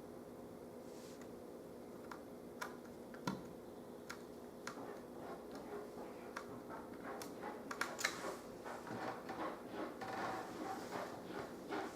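Light clicks and taps of small screws and plastic laptop display parts being handled during reassembly, scattered at first and turning into denser clicking and rustling about eight seconds in, over a faint steady hum.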